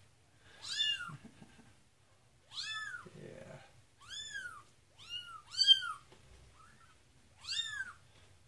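Young kitten meowing: about six short, high-pitched cries, each rising then falling in pitch. These are the protesting cries of a kitten being lathered with dish soap for a flea bath.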